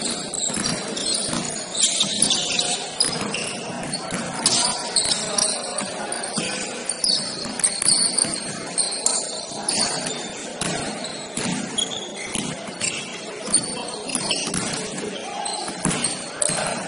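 Basketball game on an indoor court: the ball bouncing in repeated knocks, short high squeaks of shoes, and players' and onlookers' voices throughout.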